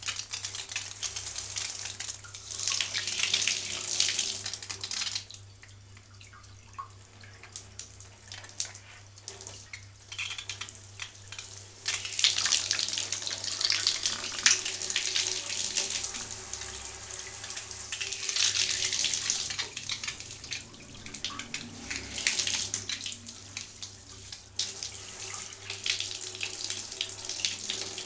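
Water spraying from a shower hose onto a hand held over it. The hiss swells and falls away as the hand moves, with two longer quieter spells, over a faint steady low hum.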